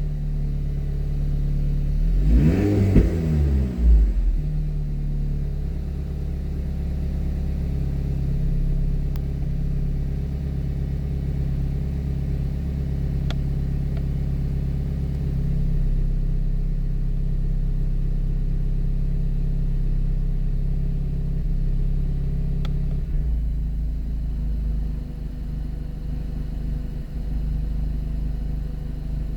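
Alpine A110 Pure's 1.8-litre turbocharged four-cylinder engine through its stock exhaust, blipped once a couple of seconds in with the pitch rising and falling, then idling steadily.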